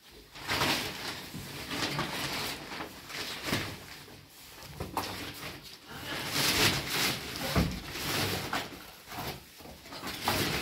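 Clear plastic wrapping rustling and crackling as a white glazed door is handled and tilted, with several knocks of the door against the floor and frame.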